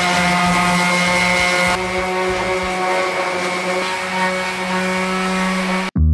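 Electric random orbital sander running steadily against aluminum square tubing, scuffing the metal so the adhesive will grip: a steady whine over a hiss, which cuts off suddenly near the end.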